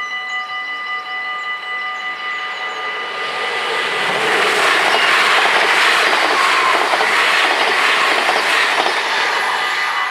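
Mechanical bells of a Dutch automatic half-barrier level crossing ringing continuously while an NS VIRM double-deck electric train passes. The train's wheel and carriage noise swells from about three seconds in, stays loud for several seconds and falls away near the end, with the bells still ringing.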